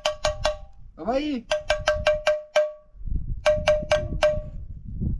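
A spoon tapped quickly against a metal plate, giving three runs of four to six ringing taps about a second apart.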